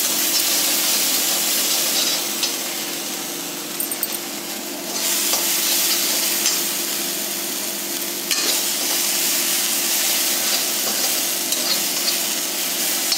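Scooped-out pointed-gourd (parwal) pulp sizzling as it fries in oil in a steel kadhai, stirred and scraped with a metal slotted spoon. The sizzle swells about five seconds in and eases off about three seconds later.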